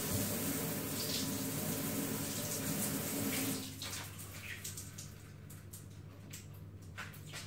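Water running from a handheld shower, heavier for the first three and a half seconds or so, then softer.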